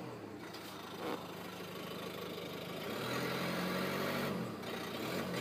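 Ford S-Max engine idling steadily, then revved once about three seconds in, its pitch rising and falling back to idle over about a second and a half.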